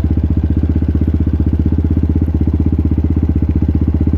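250 cc four-stroke dirt bike engine idling steadily, with an even, rapid pulse.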